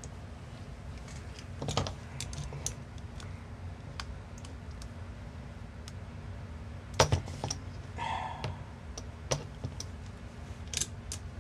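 Irregular small clicks and taps from fingers handling a DJI FPV air unit and pressing its tiny MMCX antenna connectors into place on a carbon-fibre quadcopter frame. The loudest click comes about seven seconds in.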